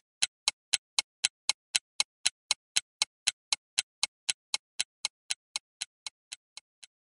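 Clock-like ticking sound effect, about four sharp ticks a second, growing fainter and stopping near the end: a countdown timer running out.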